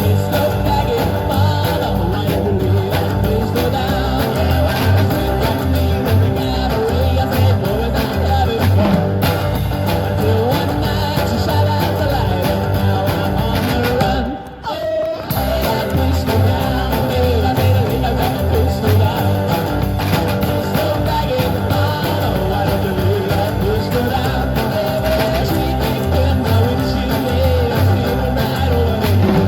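Live busking band performing an upbeat country song, with guitar and singing over a steady pulsing bass beat. The music drops out briefly about halfway through, then carries on.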